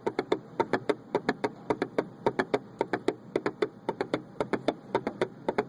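A rapid, uneven run of sharp taps or clicks, about five to six a second, over a faint steady hiss.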